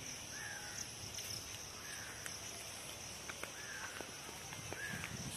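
Outdoor ambience of insects and birds: a steady high-pitched insect drone, with a bird's short rising-and-falling call repeated four times about every second and a half. A few light clicks and rustles, like footsteps on dry leaves, come in near the end.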